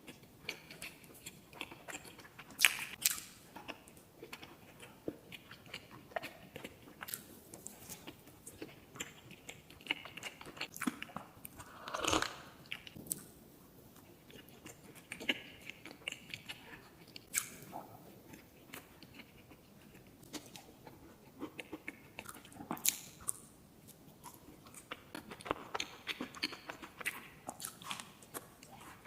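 Close-miked eating sounds: sweets being bitten and chewed, with sharp crunches and crackles scattered throughout, the loudest about 3 and 12 seconds in.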